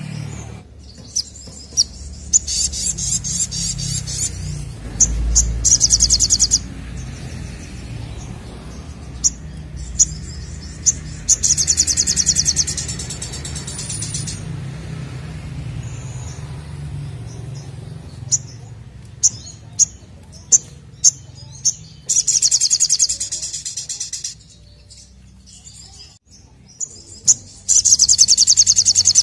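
Brown-throated sunbird (sogok ontong) singing in repeated bouts of fast, high trills, each one to two and a half seconds long, with single sharp chips between the bouts.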